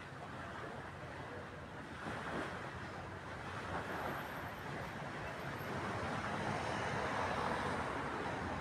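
A steady rushing noise with no distinct events, growing a little louder in the second half.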